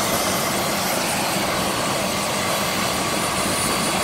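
Medical helicopter's turbine engine running on the ground: a steady rush of noise with a faint high whine, unchanging throughout.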